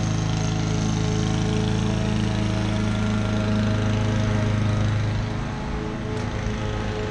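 Honda 216D self-propelled lawn mower's single-cylinder four-stroke engine running steadily while mowing, easing down slightly in level about five seconds in.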